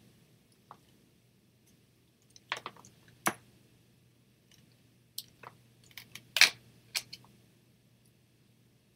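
Scattered light clicks and taps of small craft pieces being picked up, shifted and set down on a tabletop, irregular and with a few close together about six to seven seconds in.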